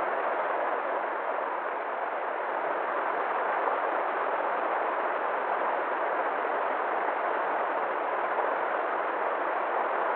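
River water flowing steadily, a constant even rushing with no change in level.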